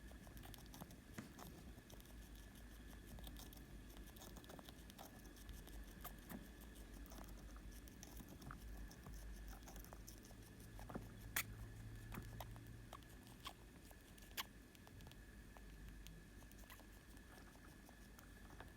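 A young rat sneezing and scratching: many faint small clicks and scuffles, with two sharper sneeze-like clicks about eleven and fourteen seconds in.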